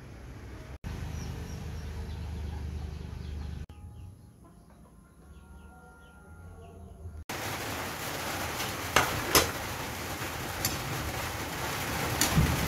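Faint outdoor ambience, then from about seven seconds in, vegetables sizzling in a hot wok with a steady hiss, and a metal spatula clacking and scraping against the pan as they are stir-fried.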